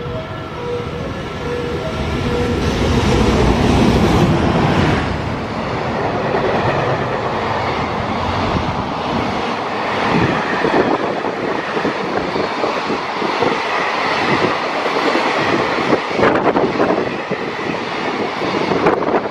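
Electric-locomotive-hauled container freight train running through the station at speed. The locomotive's rush is loudest about four seconds in. It is followed by the steady rumble of the container flatcars, with clickety-clack knocks as their wheels cross the rail joints. A repeating beeping tone sounds during the first two seconds.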